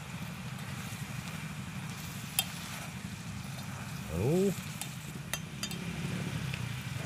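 Small fish and spice paste being stirred with a spoon in a pot of hot oil: wet mixing with a faint sizzle and a few light clinks of the spoon against the pot. A short voice sound about four seconds in, over a steady low hum.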